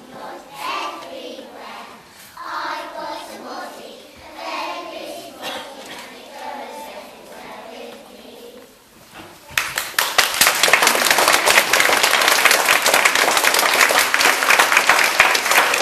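A group of young children's voices singing together. About ten seconds in, loud audience applause breaks out, dense clapping that keeps going.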